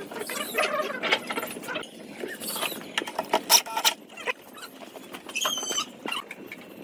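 Irregular clicks and knocks of pine parts being handled and fitted together, loudest in a cluster in the middle, with a short high squeak about five and a half seconds in.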